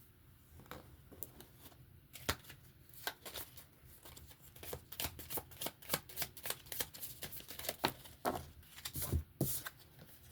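A deck of oracle cards being shuffled by hand: a quick, irregular run of card clicks and slaps that starts about two seconds in and carries on until shortly before the end.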